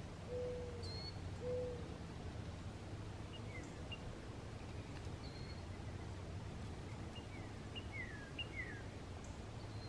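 Wild birds calling in woodland: scattered short down-slurred chirps and brief high whistles, with two low, held notes about a second apart near the start, over a steady low background hum.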